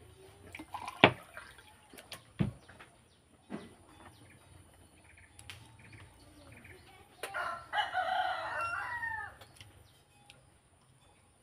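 A rooster crows once, about eight seconds in, a call of about a second and a half whose pitch falls at the end. Before it come two sharp knocks.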